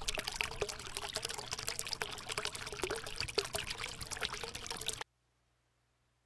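Small stream of water trickling and splashing into a pond, with many small splashes in a steady run. It cuts off suddenly about five seconds in.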